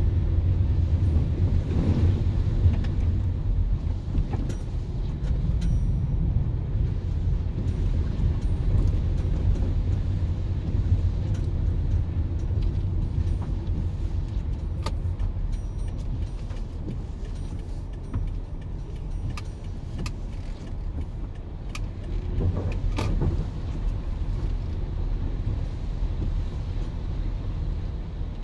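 Car driving on a wet, flooded road, heard from inside the cabin: a steady low engine and road rumble with tyre noise, and scattered short clicks throughout.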